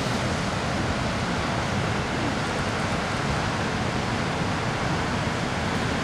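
Waterfall in flood after heavy rainfall, muddy water plunging into a churning pool, giving a steady, unbroken rushing noise.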